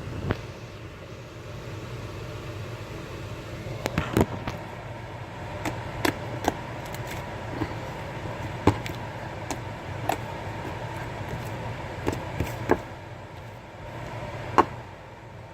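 Slime being squeezed and stretched, giving a string of sharp pops and clicks at irregular intervals over a steady background hum.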